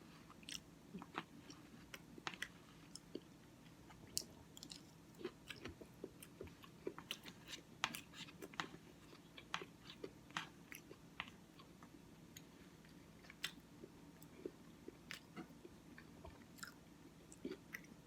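Faint close-up mouth sounds of someone eating oatmeal: soft chewing with many small, irregular wet clicks and lip smacks.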